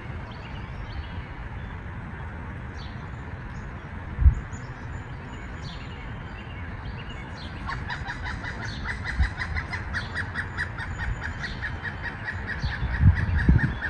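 Woodpecker calling: a rapid, even series of notes that starts about eight seconds in and runs about six seconds, over a steady background hiss with faint higher chirps. A low thump sounds about four seconds in.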